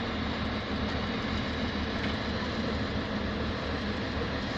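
Engine of a drop-hammer pile-driving rig running steadily, with no hammer blow standing out.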